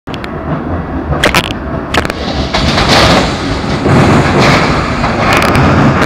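Keikyu red electric commuter train running past close by, a steady rumble of wheels on rail with two sharp clacks in the first two seconds, growing louder from about two and a half seconds in as the cars draw level.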